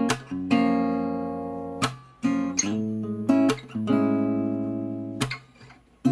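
Instrumental passage of a worship song: acoustic guitar strumming chords, each stroke left to ring out, with a short lull near the end.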